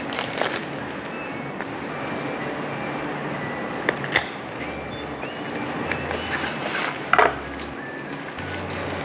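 Hands unwrapping a small diecast model: a plastic bag and sleeve crinkling and a cardboard box being opened, with a few sharp crackles and snaps, the loudest about seven seconds in. Quiet background music runs underneath.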